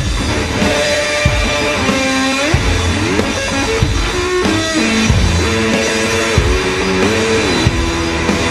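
Live blues-rock instrumental: electric slide guitar gliding up and down between held notes over a drum kit's regular heavy hits, with no vocals.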